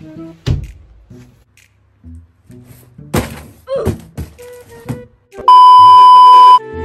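Quirky comedy background music with several sharp thunk-like hits, then a loud steady beep lasting about a second near the end.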